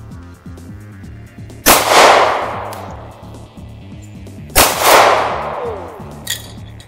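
Two gunshots about three seconds apart, each with a long echo dying away; the second hits an aerosol can of red spray paint and bursts it into a red cloud.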